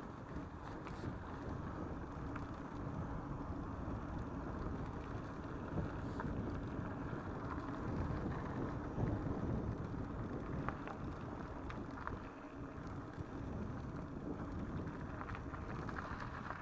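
Mountain bike rolling along a dirt and gravel path: steady tyre rumble with wind buffeting the action camera's microphone, and scattered small clicks from grit and rattling parts.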